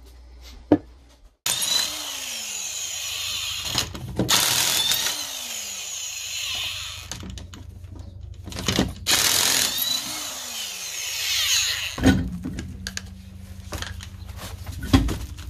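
Cordless impact wrench spinning lug nuts off a car's steel wheel, running in a few long bursts with short pauses, its pitch falling as it spins down after each burst. A steadier low hum follows near the end.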